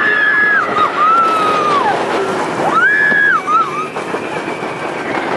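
Riders screaming on a steel roller coaster as the train runs through its loop, over the steady rumble of the train on the track and rushing wind. One scream is already under way and falls away about two seconds in. A second rises, holds and drops around the middle.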